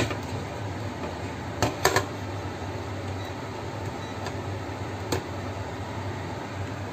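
Glass pot lid clinking against the rim of a steel pan as it is set partly closed: two clinks close together about two seconds in and one more a few seconds later, over a steady low hum.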